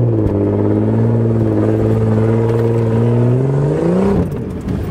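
Toyota FJ Cruiser's 4.0-litre V6 pulling hard under load on a steep dirt climb, holding steady revs. The pitch rises briefly, then the engine note drops away about four seconds in as the throttle comes off.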